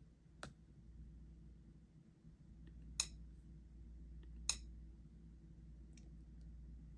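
Sharp single clicks of fingers tapping keys on a touchscreen, spelling out the next word letter by letter on a communication app. There is a faint click near the start, two louder clicks about three and four and a half seconds in, and a few faint ticks, over a low steady hum.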